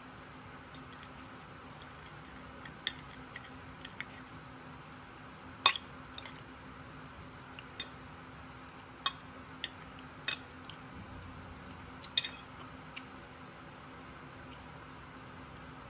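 Metal fork clinking and scraping against a ceramic plate as it digs into baked pasta: about eight sharp, irregular clinks, the loudest about six seconds in.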